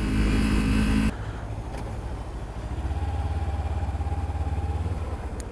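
Kawasaki Ninja 300 parallel-twin engine running, with wind noise on the microphone. The noise drops off abruptly about a second in, and the engine then idles with a low, even pulse.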